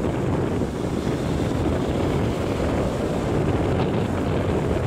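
Steady wind rumbling on the microphone.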